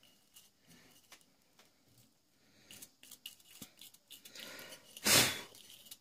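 Stiff brush scrubbing caked dust out of a computer cooling fan's impeller hub: faint scratching with light clicks. Just after five seconds comes a single short, loud, breathy burst.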